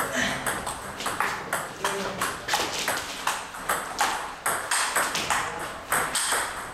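Table tennis ball clicking sharply off bats and table during a rally, a quick run of several clicks a second.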